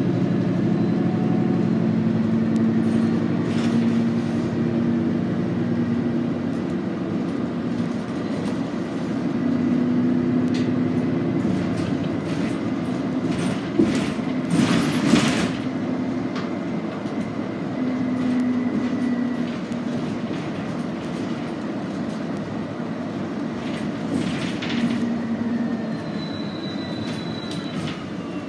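Ride noise inside a Nova Bus LFS hybrid city bus under way: a steady low drive rumble with a thin high whine from the hybrid drive, and humming tones that come and go. There are a few sharp rattling knocks around the middle, and near the end the whine slides down in pitch.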